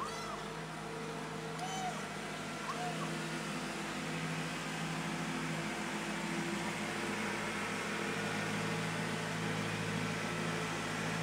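Steady mechanical hum, like an engine or motor running, that grows a little louder about halfway through. Over it a tabby kitten gives three or four faint short mews in the first three seconds.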